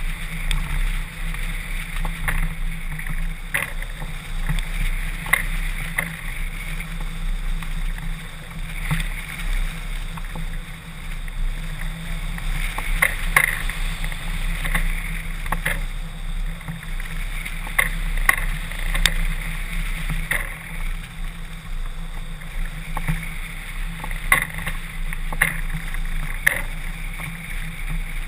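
Airflow rushing over a camera mounted on a hang glider in flight: steady wind noise with a deep rumble, broken every second or two by sharp clicks.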